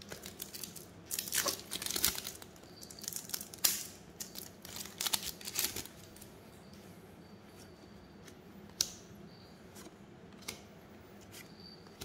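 A trading card booster pack wrapper being torn open and crinkled: a run of rustling tears over the first six seconds. After that it goes quieter, with only a couple of faint clicks.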